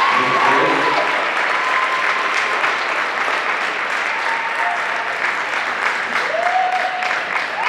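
Audience applauding steadily, with a few long cheering calls over the clapping.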